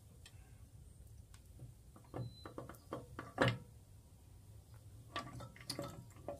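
Light metallic clicks and knocks as the crankshaft of a VW air-cooled 40 hp engine is turned by hand in its open crankcase half, its connecting rods shifting and clinking. A cluster of knocks comes in the middle, the loudest about three and a half seconds in, with a few more near the end.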